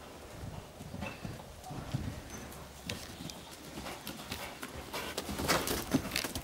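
Hoofbeats of a bay mare cantering on a soft arena surface, thudding irregularly and growing louder as she comes close, with sharp clicks among the strides near the end.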